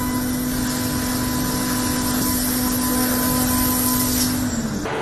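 CNC machine tool running, with a steady hum over a wash of cutting and machine noise. The hum sags in pitch and drops away just before the end.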